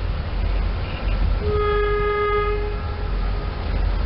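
SEPTA Silverliner electric multiple-unit train sounding its horn: one blast of about a second and a half, starting about halfway through, over a steady low rumble of the approaching train.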